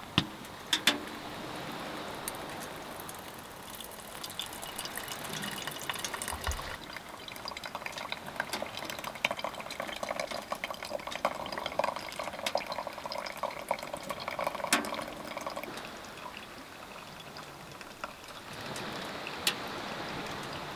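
Hot water poured from a kettle onto coffee grounds in a stainless steel pour-over filter, trickling and dripping through into the metal cup below, with a few sharp ticks along the way.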